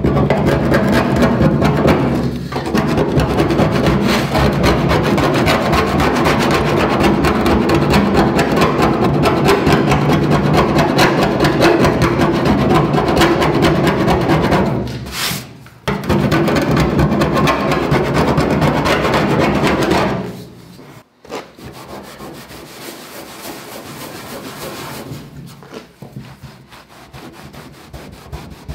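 Hand-abrading layers of old paint off the steel body panel of a 1966 VW bus with a handheld abrasive block: a steady back-and-forth rasping scrub, with music behind it. About twenty seconds in the sound drops to a much quieter rubbing on the panel.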